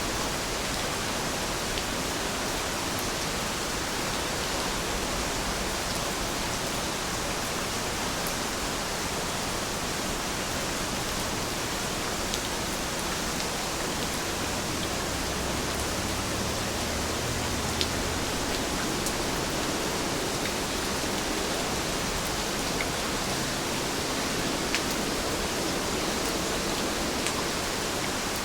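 Steady rainfall, a dense even hiss with a few sharper drop ticks now and then.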